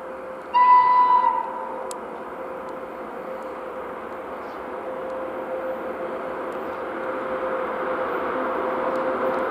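VL80K electric locomotive hauling a freight train gives one short, high horn blast about half a second in. Under it a steady hum and the rumble of the approaching train grow louder.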